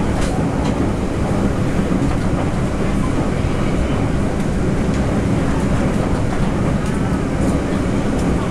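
Interior running noise of a Taiwan Railway Taroko Express tilting electric train (TEMU1000) at speed: a steady rumble of wheels on rail, with a few short sharp clicks near the start and near the end.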